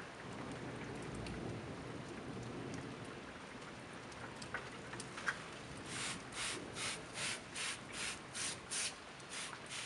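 Steady rain noise, then from about six seconds in a rhythmic rubbing or scraping, about two and a half strokes a second, that becomes the loudest sound.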